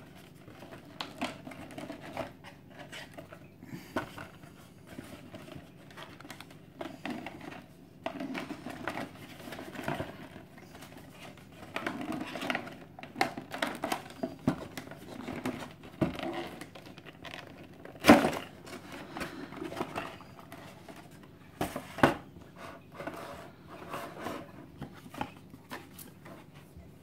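A cardboard collector's box and its inner packaging being handled and unpacked: rustling and scraping of card and paper, crinkling of a clear plastic tray, and many small clicks, with two sharper knocks about 18 and 22 seconds in.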